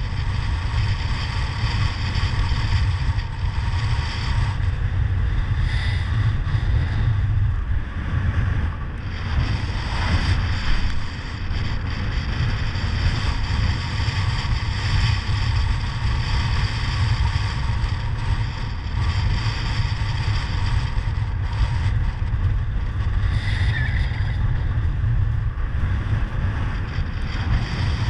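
Strong wind buffeting the camera microphone: a steady, heavy rumble with a hiss over it, with wading through shallow water.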